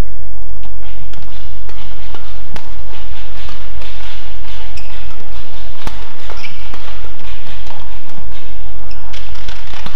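Badminton rackets striking the shuttlecock in a fast doubles rally: a string of sharp hits at irregular intervals, the loudest about six seconds in, over a steady low rumble.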